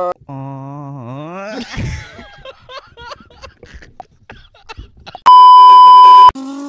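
Comedy-edit meme sound effects: a drawn-out voice groan that dips and rises in pitch, then a few seconds of choppy laughter. Near the end comes a loud, steady test-tone beep of the kind played over TV colour bars, lasting about a second.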